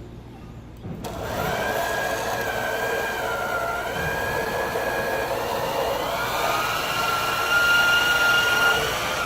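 Bauer portable band saw starting up about a second in and running while cutting through doubled 2x4 stock. Its whine shifts in pitch under load, and the sound drops away right at the end.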